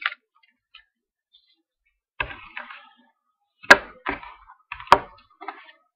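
Hands handling a freshly opened pack of trading cards. After a short pause come rustles of card stock and wrapper, broken twice by sharp snapping clicks as the stack is handled.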